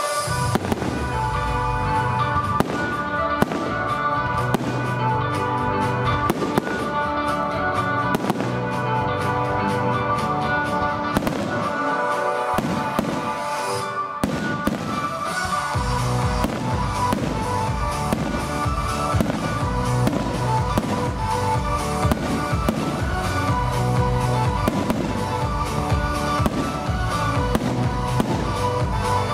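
A fireworks display, with rockets going up and shells bursting in many sharp bangs, over music with long held tones that runs throughout.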